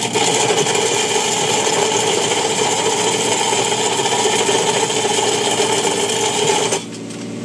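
Simex PLB 200 excavator planer's 30 mm-wide cutting disk grinding a slot into asphalt: a loud, steady rasping grind that drops off sharply near the end.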